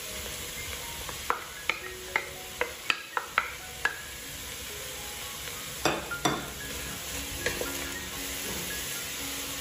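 Food sizzling in a stainless steel pot as diced carrots go in. A wooden spatula taps sharply about eight times in quick succession, then knocks twice more loudly as stirring begins.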